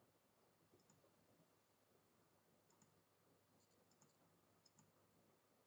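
Near silence with a few faint computer mouse clicks scattered through it, some in quick pairs.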